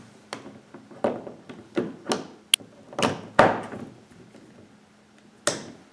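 Hard plastic clicks and knocks from a Schuko plug being handled and pushed into a power strip on a wooden table: about eight sharp knocks over the first few seconds, then one louder knock near the end.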